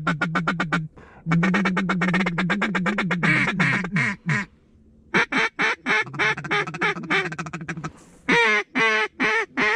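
Hand-blown mallard duck call: two runs of fast feed chatter, a short falling string of quacks, then after a brief pause a series of spaced hen quacks with a louder falling run near the end, calling to passing ducks to draw them in to the decoys.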